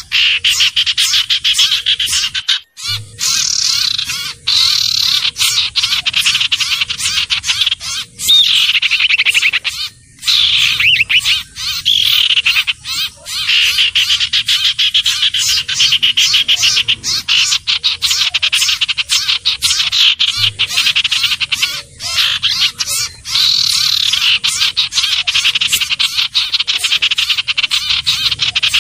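Common iora (cipoh/sirtu) calls on a lure recording: fast, continuous chattering trills, broken by short pauses about 2.5, 8 and 10 seconds in.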